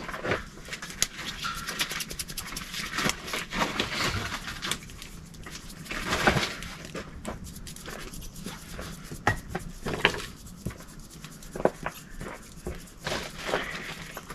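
Spice shaker shaken over raw meat on a paper towel: irregular bursts of rattling shakes and pattering seasoning, with scattered clicks.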